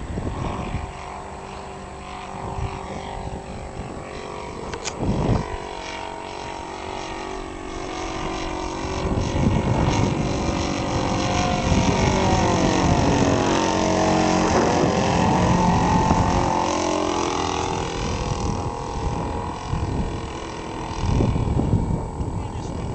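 Engine of a radio-controlled model tow plane buzzing in flight, growing louder to a close pass about two thirds of the way through, its pitch sliding down as it goes by, then fading.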